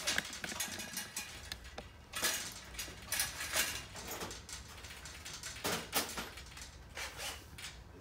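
Irregular metallic clatter and knocks from an aluminium door frame being fastened at its base with a cordless drill.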